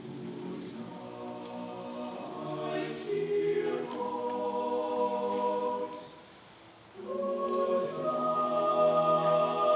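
Mixed choir of male and female voices singing long held chords. The sound drops away briefly about six seconds in, then the choir comes back in louder about a second later.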